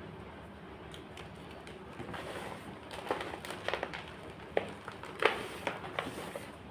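White gym chalk crunching and crumbling: after a couple of seconds of quiet hiss, a string of irregular sharp crunches and crackles starts up, the loudest about halfway through.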